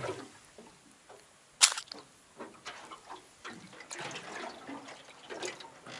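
Water splashing and dripping, with one sharp splash about a second and a half in, then scattered small splashes and drips.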